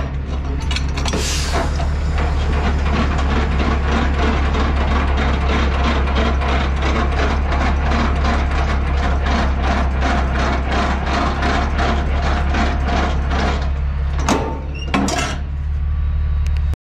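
Semi truck's diesel engine idling with a steady low hum, under a long run of regular clicks at about three a second. Two sharper knocks come near the end.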